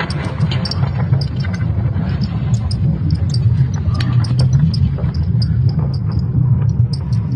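Sonification of Earth's magnetic field made from ESA Swarm satellite data: a steady deep rumble with scattered creaks and crackles over it.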